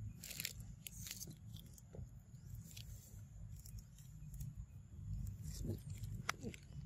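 Faint scattered crackles and crunches of dry leaf litter and twigs over a low steady rumble, with a cluster of crackles in the first second and a few more near the end.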